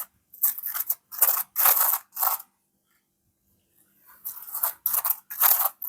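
A butter knife scraping and spreading mayonnaise on a bread roll: a run of short rasping strokes, then a pause of about two seconds, then a few more strokes.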